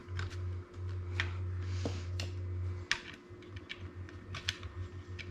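Irregular small hard clicks and taps of an AIO cooler's mounting bracket and screws being handled and fitted to a motherboard, over a low steady hum that turns patchy about three seconds in.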